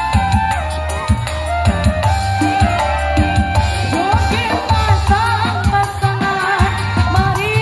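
A boy singing a dangdut song into a microphone over a backing track with a steady hand-drum beat and bass, played loud through a PA loudspeaker.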